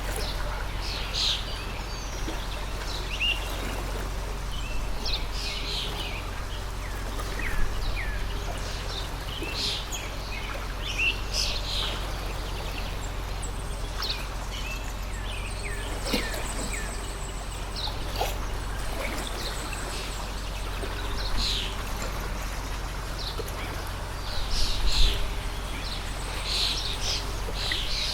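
Water stream flowing steadily, with many birds chirping and calling throughout, over a steady low rumble.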